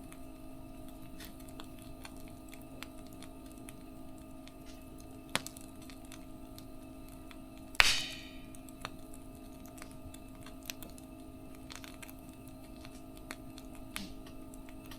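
Wood fire burning, with scattered sharp pops and small crackles, the loudest pop about eight seconds in, over a steady low hum.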